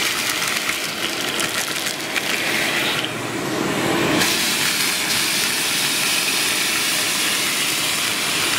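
A vacuum cleaner runs steadily as its nozzle sucks up small pieces of shattered tempered glass from the floor, with fine rattles of glass in the airflow. The hiss briefly dulls about three to four seconds in, then returns.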